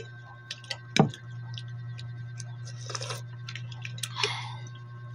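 Mouth clicks and lip-smacking from eating rice by hand, scattered throughout, with one sharp knock about a second in, over a steady low hum.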